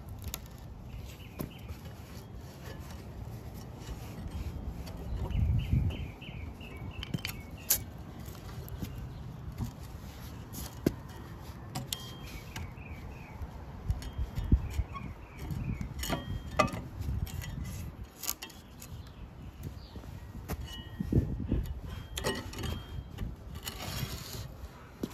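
Handling a wooden post around a metal post base on concrete: scattered low bumps and a few sharp knocks of wood against metal. Small birds chirp in short runs of quick notes in the background.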